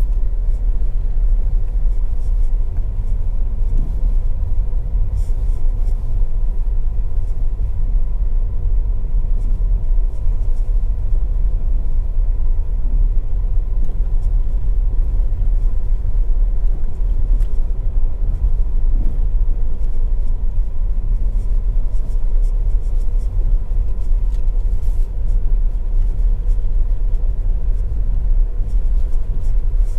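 Ford EcoSport driving along an unpaved track: a steady low rumble of engine and tyres on the rough surface, with faint scattered ticks throughout.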